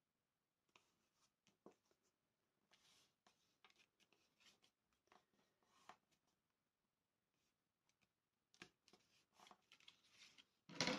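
Faint rustling and scraping of hands pressing and smoothing a glued cardboard pocket onto a cardboard wallet while the liquid glue sets, with a louder rustle of the cardboard being picked up and handled near the end.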